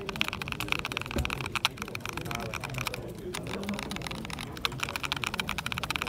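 Mechanical keyboard with a metal plate being typed on rapidly, giving a dense clatter of key clicks with a brief pause about three seconds in. Faint crowd chatter runs underneath.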